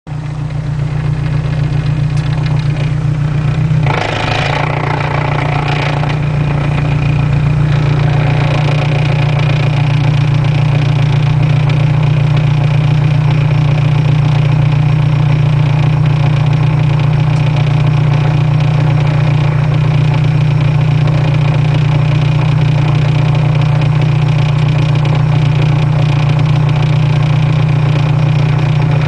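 Honda S2000 (AP1) heard from inside the cabin while running: a strong, steady low drone, with a burst of broader noise about four seconds in. This is an unexplained noise that the owner traces to around the transmission; the car drives normally.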